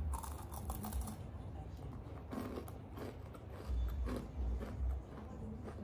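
Eating a crumbly baked cookie close to the microphone: crisp crackling crunches as it is broken and chewed, with dull low thuds that are loudest from about four seconds in.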